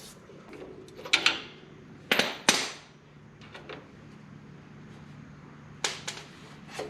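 A few sharp knocks and clatters in a workshop, the loudest a pair about two seconds in, with more near the end, over a faint steady hum.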